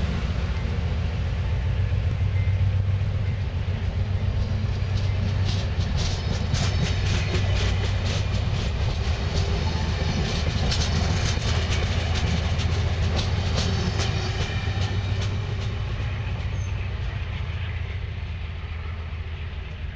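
Amtrak passenger cars (Horizon coaches and Amfleet cars) rolling past with a steady low rumble. From about 5 to 15 s a quick run of clickety-clack wheel clicks over the rail joints is heard. The sound then fades as the last car pulls away.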